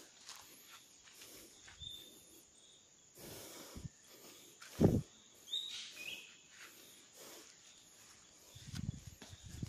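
A few short, high bird chirps in forest, over soft footsteps and handling rustle, with one loud thump about five seconds in.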